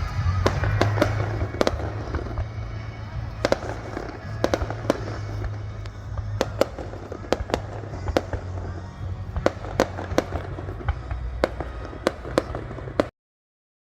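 Aerial fireworks bursting in a rapid, uneven barrage of sharp bangs over a continuous low rumble. The sound stops abruptly near the end.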